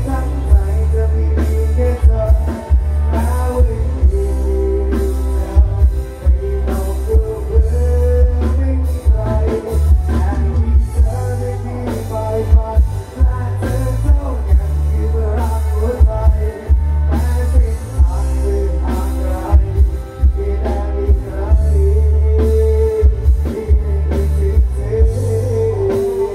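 Live band music played loud through a sound truck's PA speakers: a steady beat on drum kit with very heavy bass, guitar and keyboard.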